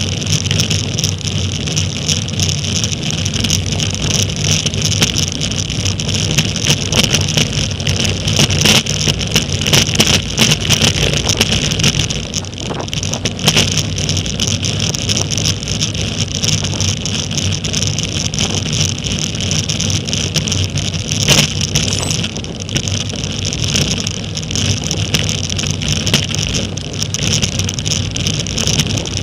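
Steady rush of wind on a road bike's camera microphone, mixed with tyre and road rumble, while riding in a pack of racing cyclists. Several sharp clicks or knocks break through, the loudest about 21 seconds in.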